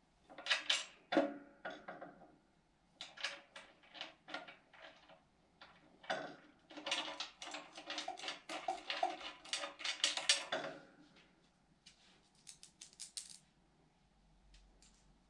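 Small steel hardware (5/16-inch bolts, washers and nylon lock nuts) clinking and rattling against the metal chute mount and mower deck as it is fitted by hand. The clicks come in quick bunches with short pauses, thinning out after about eleven seconds.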